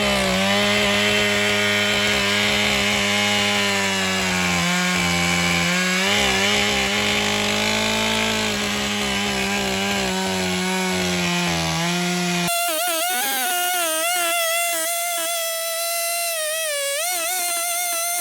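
Stihl MS 661 two-stroke chainsaw running at full throttle, ripping through wood, its pitch sagging slightly under load. About two-thirds of the way through the sound changes abruptly: the low rumble drops out and a higher whine with a wavering pitch carries on.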